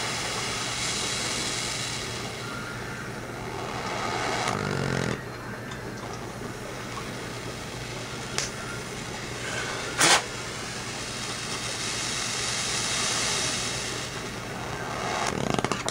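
Propane torch flame hissing steadily, swelling twice as HHO (oxyhydrogen) gas is fed into the torch head, over a low steady hum. About ten seconds in comes one sharp pop, the HHO popping.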